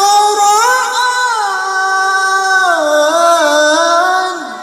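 A male qori's voice in melodic Quran recitation (tilawah), holding one long ornamented vowel that moves in steps between held pitches. It drops lower about three seconds in and fades out near the end.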